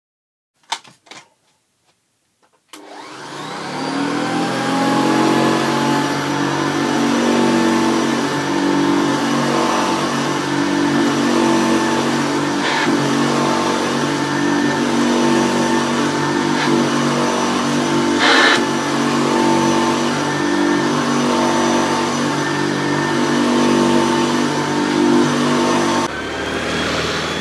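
Hoover Convertible upright vacuum cleaner switched on with a click, its motor spinning up and then running steadily, with a couple of brief ticks along the way. Near the end the sound cuts abruptly to a quieter, different running motor.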